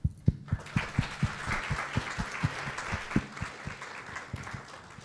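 Audience applauding. The clapping thins out and fades near the end.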